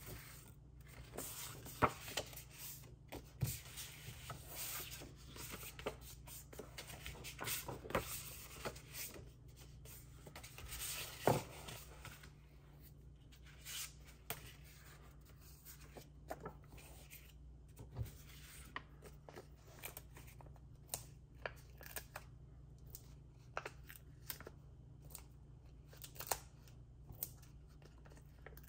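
Paper and card being handled for card-making: rustling and sliding with light clicks and taps, busy in the first half, then only scattered sharp taps. A steady low hum runs underneath.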